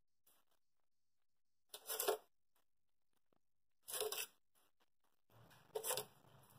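Three short scraping rustles about two seconds apart: spice powder being handled at a steel spice box while marinating mushrooms and soya chaap.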